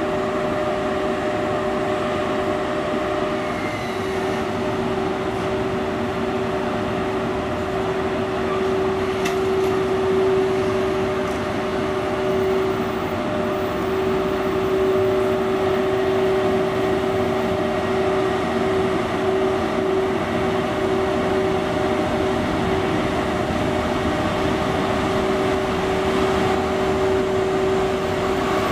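JR Freight EF81 AC/DC electric locomotive's cooling blowers running with a steady hum, holding two constant tones, as the locomotive pulls its freight train slowly away.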